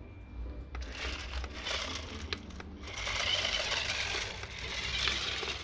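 Small electric motor and plastic gears of a battery-powered remote-control toy car whirring as it drives, louder from about halfway through.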